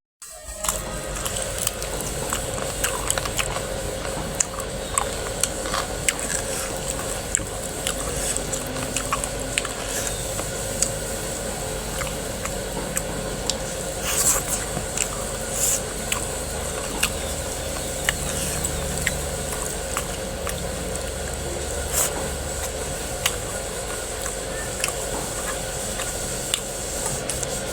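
Close-up eating sounds: a person chewing and biting mouthfuls of pork curry and rice, with many short wet clicks and smacks, over a steady background hum.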